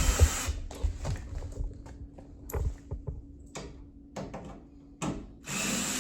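Power drill with a nut-driver bit running as it backs screws out of a PTAC unit's sheet-metal cabinet: a short run ending about half a second in, then scattered clicks and knocks of the bit and screws on metal. The drill runs again near the end.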